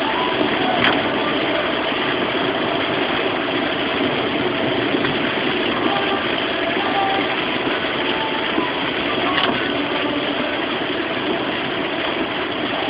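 Steady rush of heavy rain and wet road noise heard from inside a moving car's cabin, with the engine running underneath.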